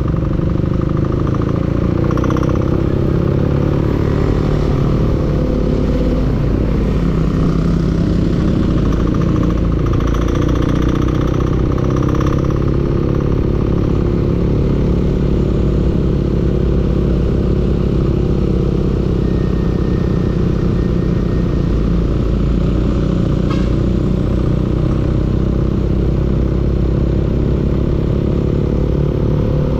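Engine running steadily at around idle, with small changes in pitch. It is the knocking engine the recording was made to capture.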